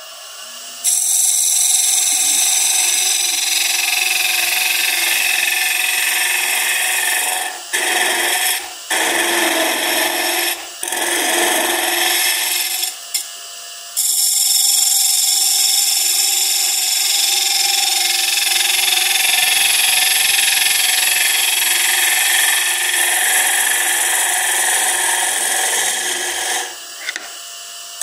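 Hollowing tool cutting inside a spinning end-grain wooden box blank on a wood lathe: a steady scraping hiss of shavings being cut, broken by several short pauses between about 7 and 14 seconds as the cut is eased off.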